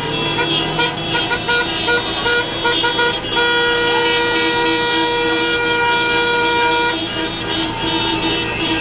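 Vehicle horns honking over one another: short repeated toots, with one long steady blast held for about three and a half seconds in the middle.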